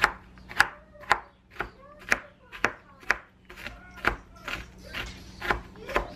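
Knife chopping diced onion on a wooden cutting board, in steady strokes about two a second.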